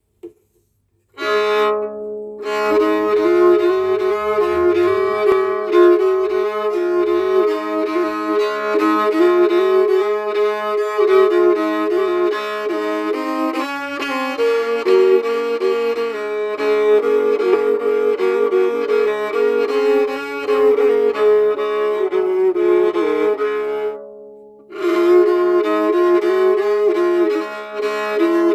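Homemade tagelharpa, a bowed lyre of pine, tsuga, pear and maple strung with violin and viola strings, bowed to play a melody over steady drone strings. It starts about a second in, stops briefly near the end and starts again.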